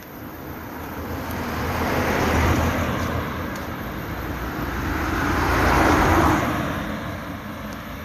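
A car and then a van drive past one after another on an asphalt road, their tyres and engines swelling up and fading away. The car passes about two and a half seconds in, and the louder van about six seconds in.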